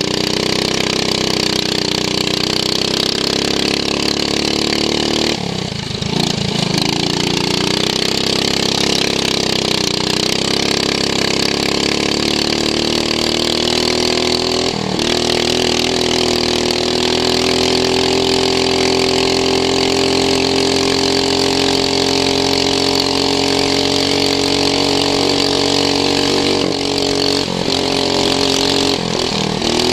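Racing lawn mower's engine running hard, heard onboard: its pitch dips briefly about six seconds in and again near the end as the mower slows, then climbs back up.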